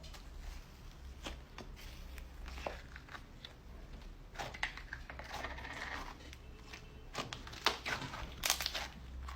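Slime being squeezed and poked by hand, giving irregular crackling pops and clicks, which come thicker and louder in the second half.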